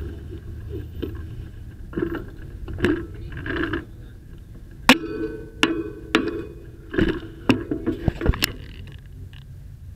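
Bicycle being handled and parked at a metal bike rack. Softer scraping and rattling comes first, then a run of about eight sharp metallic clanks and knocks in the second half, picked up loud through the frame-mounted camera.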